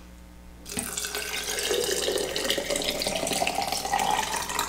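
Salt-water brine poured from a pitcher into a quart glass Ball jar of crushed chilies, ginger and garlic. The steady splashing pour starts about a second in and rises in pitch as the jar fills.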